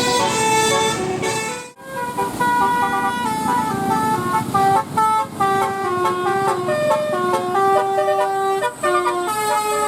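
Telolet bus horn, a set of multi-tone air horns, playing a quick tune of short and held notes that step up and down in pitch. It breaks off briefly about two seconds in, then the tune carries on.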